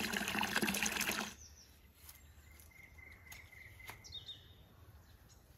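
Water running and splashing over fruit in a stainless-steel colander, cutting off abruptly about a second in. Then quieter outdoor sound with a few bird chirps and several sharp clicks of pruning shears snipping daisy stems.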